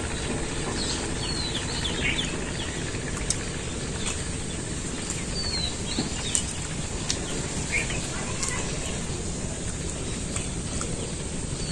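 Outdoor rural ambience: a steady rushing background noise with small birds chirping now and then, and a few short light clicks.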